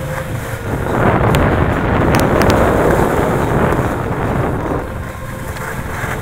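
Rushing wind buffeting the microphone of a head-worn sunglass camera while moving down a snow slope. It swells loud about a second in and eases after about four seconds, with a few sharp clicks along the way.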